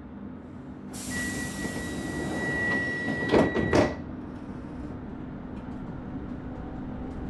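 Commuter train's sliding doors closing inside the carriage: a sudden hiss of air with a steady high tone over it, then two heavy thumps a fraction of a second apart as the doors shut. The stationary train's steady low hum carries on underneath and afterwards.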